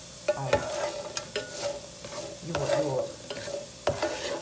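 A spatula stirring and scraping diced potatoes in a nonstick Presto skillet, with several sharp clicks of the utensil against the pan. Under it runs the steady sizzle of the potatoes frying in butter and sausage fat as they start to toast golden brown.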